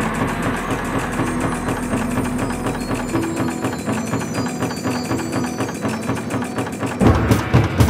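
Rhythmic sound-design track built from factory machine recordings: a fast, even mechanical clatter over a few steady tones, with a heavier thumping beat coming in near the end.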